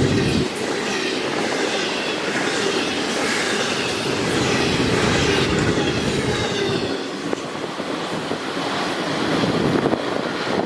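Freight train cars rolling past on steel wheels, with high-pitched wheel squeal rising and falling in repeated waves.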